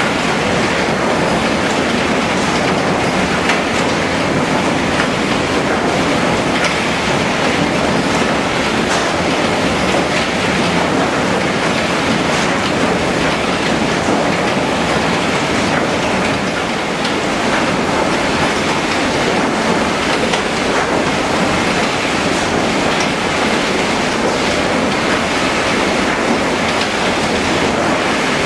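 HewSaw R200 chipper-canter sawing line running: a loud, steady mechanical din with fine rattling throughout.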